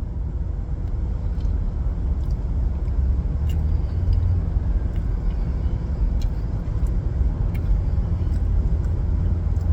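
Steady low rumble of a car being driven, heard from inside the cabin: engine and road noise with a few faint ticks.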